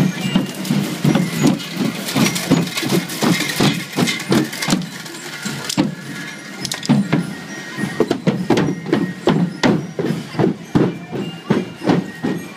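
Drums beating a steady rhythm, about three strokes a second, in a marching procession, over the hubbub of a street crowd.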